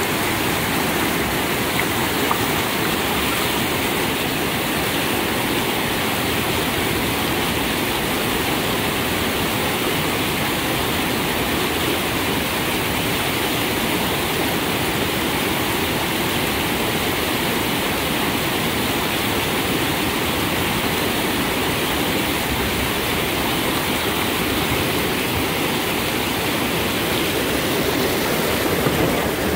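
Whitewater river rapids rushing over and around boulders, a steady unbroken sound of churning water.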